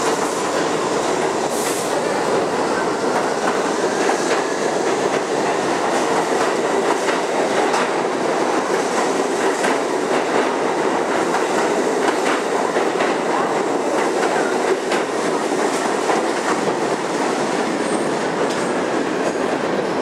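Kawasaki R68A subway train pulling out of the station and running past close by: a loud, steady running noise of the cars on the track, with many sharp wheel clicks.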